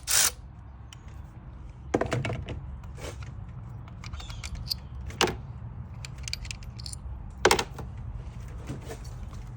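Scattered metallic clicks and clinks of hand tools and ignition-coil parts being handled in a car's engine bay, with sharper knocks about two, five and seven and a half seconds in, over a low steady hum.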